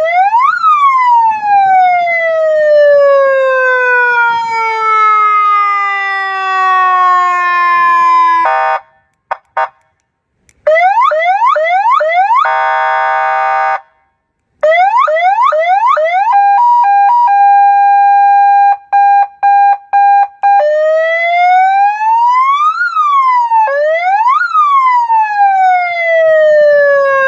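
A 12 V, 100 W electronic siren with a horn loudspeaker cycles through its signal modes. It opens with a quick rise into a long falling wail lasting about eight seconds, then gives fast yelping sweeps, a short buzzing horn blast and a brief pause. More yelps follow, then a hi-lo two-tone, a steady tone broken into beeps, and slow rise-and-fall wails that end in another horn blast.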